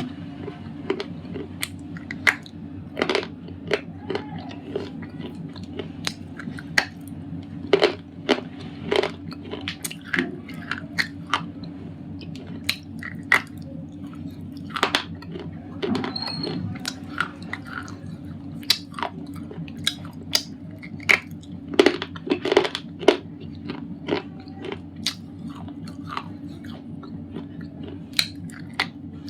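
Thick white slate pencils being bitten and chewed: sharp, irregular crunches, about one or two a second, over a steady low hum.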